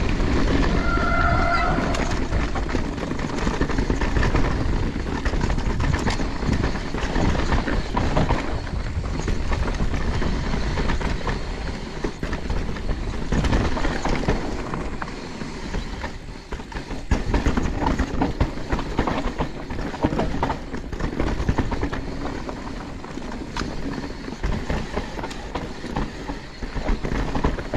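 Electric mountain bike riding fast down a rough trail: wind rushing over the chest-mounted camera's microphone over a constant clatter and rattle of the bike and tyres on the bumpy ground. A short high squeal comes about a second in.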